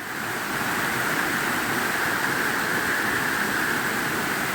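Waterfall cascades rushing: a steady, full rushing noise of falling water that grows a little louder about half a second in, then holds.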